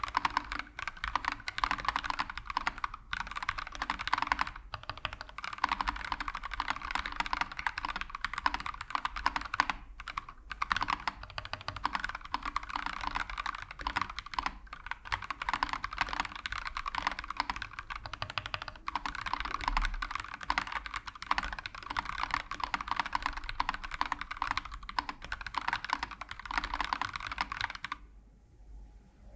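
Fast, continuous typing on an Akko ACR 67 acrylic, gasket-mounted mechanical keyboard with an FR4 plate, stock Akko CS Starfish linear switches and ASA low-profile keycaps. A dense run of key clacks breaks off briefly a couple of times and stops about a second before the end.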